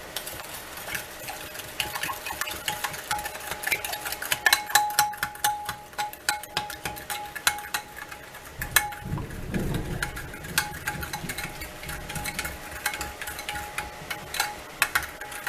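Sauce being stirred in a bowl, the utensil clicking rapidly and unevenly against the bowl's sides. There is a duller knock about two-thirds of the way through.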